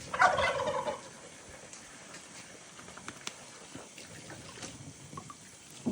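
A farm animal's call, about a second long and rolling, near the start, followed by faint scattered clicks and rustle.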